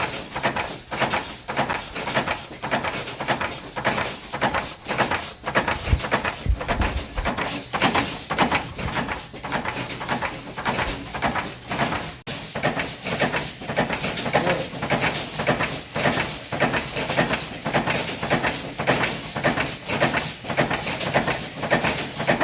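Old mechanical press stamping out eraser covers, running at a steady quick rhythm of repeated sharp strokes.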